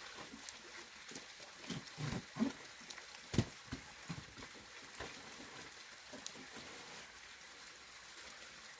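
Knocks, thuds and rustling as cut banana stalks and leaves are handled and packed into a woven basket, with one sharp thump about three and a half seconds in.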